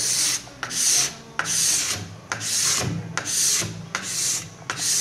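Plexiglass scraper drawn repeatedly along a race ski's base, scraping off the excess wax in even rasping strokes, about seven in five seconds.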